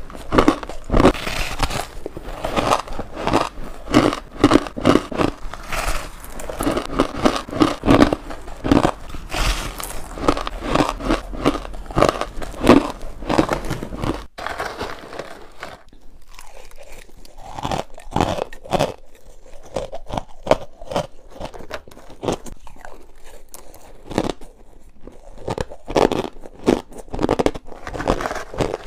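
Crunching bites into hard crushed ice, with chewing. The crunches come thick and fast, break off about halfway through, then come back as sparser separate crunches with quiet gaps between.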